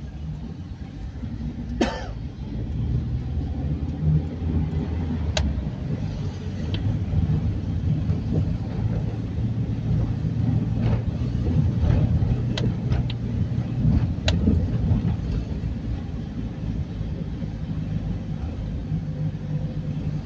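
Car engine and road noise heard from inside the cabin while driving slowly up a street: a steady low drone, with a few short clicks and ticks scattered through it.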